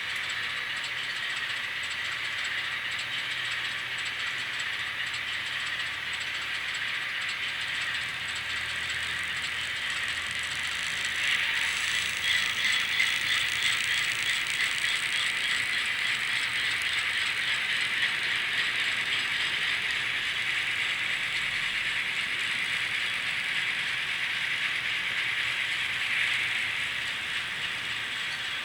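N scale model train running on the track: a steady, high rattling whir of small metal wheels and the geared motor, with fast fine clicking that grows louder about eleven seconds in.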